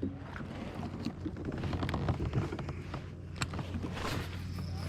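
Scattered light clicks and knocks of fishing gear being handled in a kayak, over a steady low hum.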